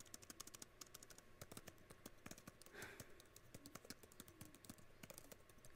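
Soft, rapid typing on a computer keyboard, a steady patter of key clicks.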